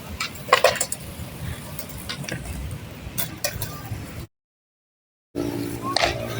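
Skateboards rolling and clacking: a steady rolling rumble with several sharp clacks, the loudest about half a second in. The sound cuts out about four seconds in, then returns as a steady hum.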